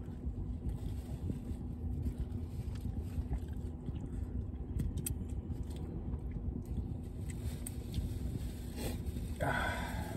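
Steady low hum of a car cabin with the engine or heater running, with faint scattered clicks of people chewing food. A short breathy vocal sound comes near the end.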